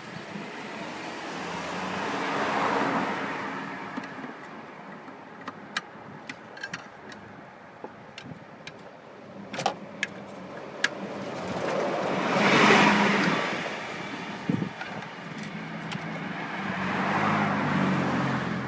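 Three cars passing by on a road, each swelling and fading over a few seconds, the second one the loudest. Between them come scattered small clicks and taps of hand work on the engine.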